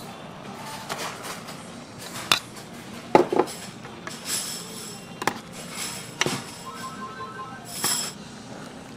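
Tableware clinking and knocking: about half a dozen separate sharp clinks of utensils against dishes, a few of them ringing briefly.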